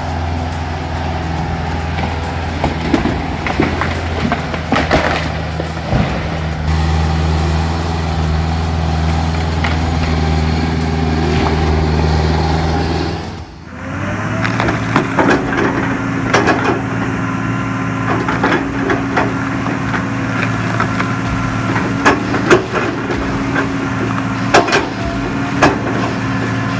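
Diesel engine of a heavy forestry machine running steadily under load. After an abrupt change about halfway through, another engine runs while wood cracks and splinters over and over, as timber is cut or crushed.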